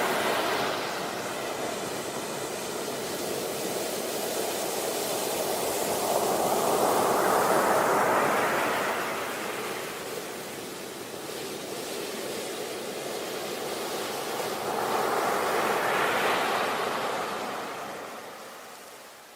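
Sea waves breaking and washing up a beach, rising and falling in slow surges: one at the start, one about 8 seconds in, another about 16 seconds in, then easing off near the end.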